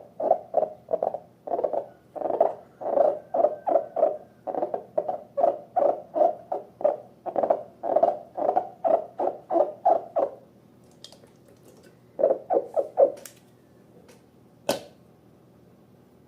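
Slime squelching as it is squeezed and worked, in a quick rhythm of about three wet pulses a second. It stops about ten seconds in, a short burst of squelches follows a little later, and a single sharp click comes near the end.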